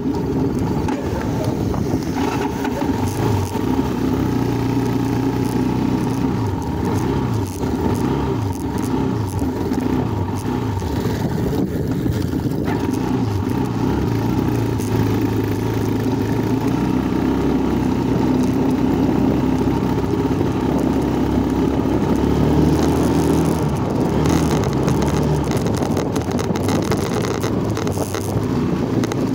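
Motorcycle engine running while riding a dirt track, its pitch rising and falling again and again with the throttle.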